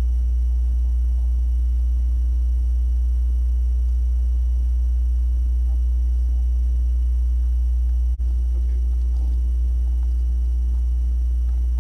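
Steady low hum that cuts out for an instant about eight seconds in.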